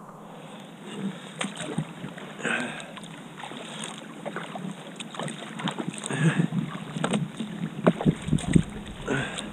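Double-bladed kayak paddle strokes: the blades dip and splash into the water in surges every couple of seconds, with dripping and small clicks and knocks between strokes. There are a few louder thumps near the end.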